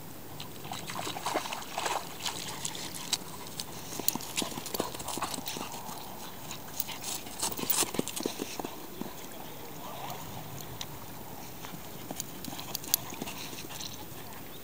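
A greyhound galloping flat out on grass: a fast, irregular patter of paw strikes that comes and goes as the dog circles, loudest about eight seconds in as it passes close.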